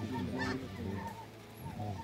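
A large flock of snow geese calling overhead: many short, high, overlapping honks.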